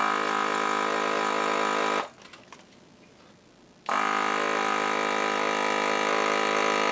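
Desoldering gun's vacuum pump running with a steady hum, in a short pull of about two seconds and then, after a pause, a longer one. It is sucking old solder out of the through-hole pins of the CPU socket.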